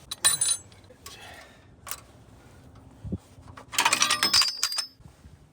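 Steel tractor parts and hand tools clinking and rattling: a short metallic clatter just after the start, a dull knock about three seconds in, and a longer run of ringing clinks around four seconds in.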